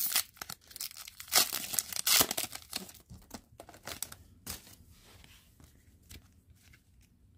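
A hockey card pack wrapper being torn open and crinkled, with the loudest rips in the first three seconds, then fading to light rustling of the wrapper and cards.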